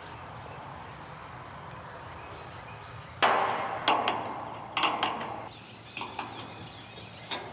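Several sudden knocks and clatters, starting about three seconds in, each fading quickly, with more sharp taps after.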